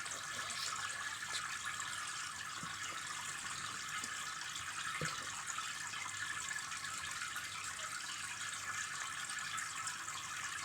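Fish tank water running steadily, a constant splashing hiss such as an aquarium filter makes, with a single small click about halfway through.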